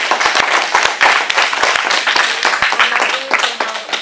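Audience applauding, the clapping thinning out near the end as voices come in.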